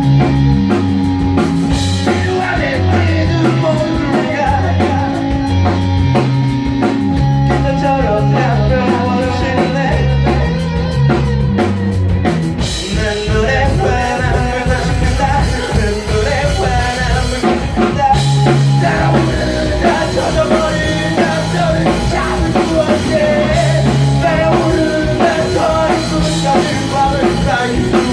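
Live rock band playing loudly: electric guitar over drums and bass, with a singing voice at times.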